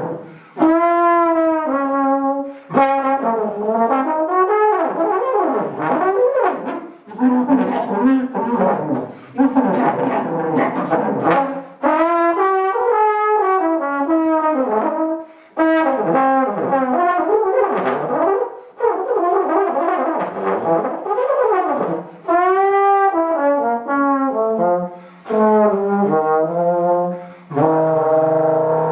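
Trombone played in free improvisation: short phrases of notes that slide up and down in pitch, each broken off by a brief pause. Near the end the sound settles into a steady chord of several held tones.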